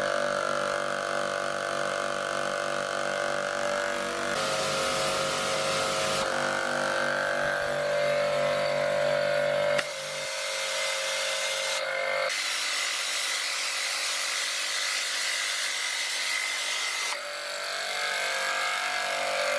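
Kärcher K4.98 pressure washer's motor and pump running with a steady hum and whine, not shutting off because its pressure stop function has been disabled. From about halfway through, a loud hiss of the high-pressure water jet spraying from the lance takes over for several seconds.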